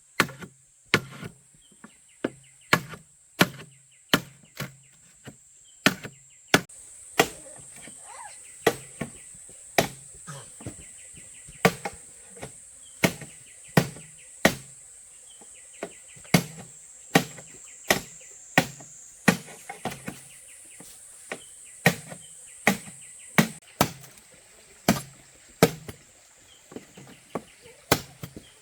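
Bamboo being chopped with a blade in steady, even strokes, about one a second. Insects shrill steadily behind, growing louder about six seconds in.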